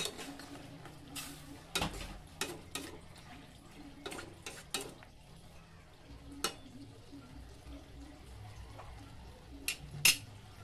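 A metal spatula stirring chicken stew in a stainless steel pot, clinking and scraping against the sides at irregular moments, with two sharper knocks near the end.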